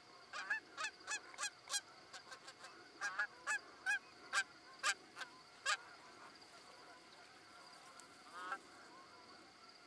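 Canada goose honking: a quick, uneven series of short honks for about six seconds, then a pause and one more honk near the end.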